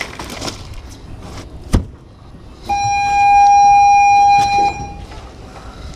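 A thump and a sharp knock from the cooler lid being handled, then a horn blowing one steady note for about two seconds, the loudest sound here, with a short ring-out as it stops.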